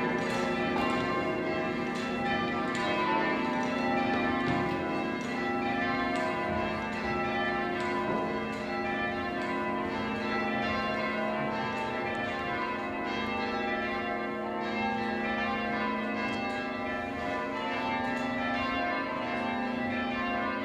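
Full-circle change ringing on a ring of church tower bells, heard from the ringing chamber below. The bells sound one after another in continuous rows that step down from the highest bell to the lowest and start again.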